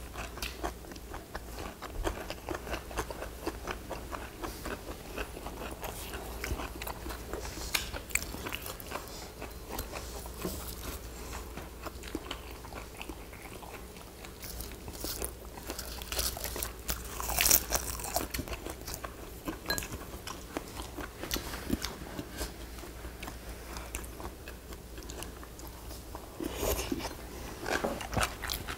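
Close-up eating sounds of two people: biting, crunching and chewing mouthfuls of broccoli, kimchi and grilled fish, with chopsticks and a spoon clicking against the dishes, one sharper click about two-thirds of the way in.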